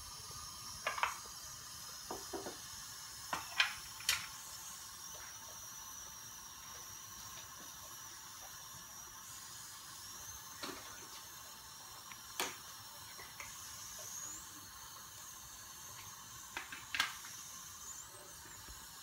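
A few light clinks and knocks of kitchen utensils and pans, scattered and some in quick pairs, over a faint steady hiss.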